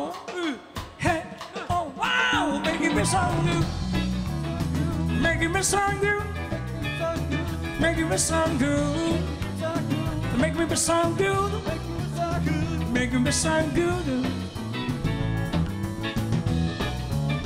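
Live rock band of drum kit, electric bass and electric guitar playing an up-tempo rhythm-and-blues groove, with a crash cymbal every couple of seconds. A few vocal whoops come first, and the full band kicks in about two seconds in.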